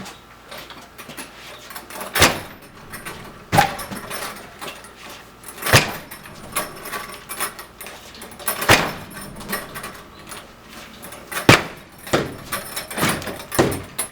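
Front door locked with a deadbolt being struck again and again by a swinging 90-pound heavy bag: about eight heavy bangs a second or more apart, the last few coming closer together, with a lighter clatter of the door and hardware between them.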